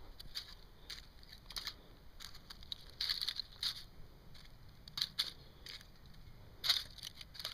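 Dry pine cones being handled and pushed into place in a stainless-steel Honey Stove: irregular light crackles, scrapes and clicks, with a sharper click near the end.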